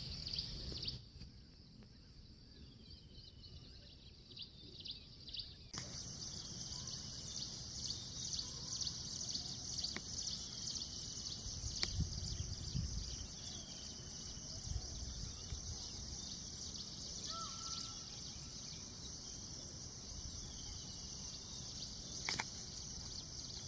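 Forest ambience: a steady high-pitched insect drone with short falling bird calls repeating every couple of seconds, over a low wind rumble. The sound changes abruptly about six seconds in, and there are a few sharp clicks.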